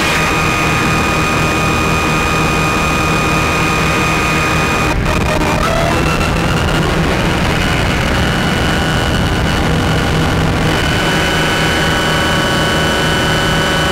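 Analog modular synthesizer playing a loud, dense wash of noise over a low drone, with high steady tones on top. The tones cut out about five seconds in, a brief gliding tone follows, and a new set of higher steady tones comes in and thickens about ten seconds in.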